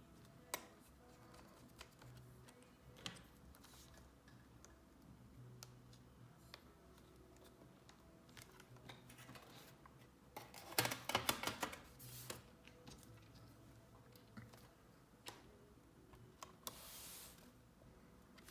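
Small clicks and taps of tools and parts being handled while a MacBook Air is reassembled. About eleven seconds in comes a quick burst of clicking, and near the end a short hiss.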